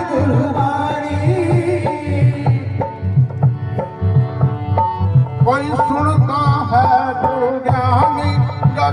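Devotional bhajan music: a hand drum keeps a steady rhythm under a melodic line. About three seconds in the melody turns to steady held notes, and about five and a half seconds in a wavering melody comes back.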